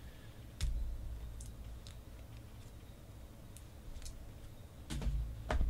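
Clear hard-plastic card holders being handled, giving scattered light clicks and taps, with two sharper clacks near the end.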